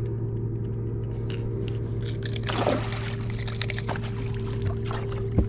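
Boat motor humming steadily, with a splash of water about two and a half seconds in as a hooked white bass is brought to the boat.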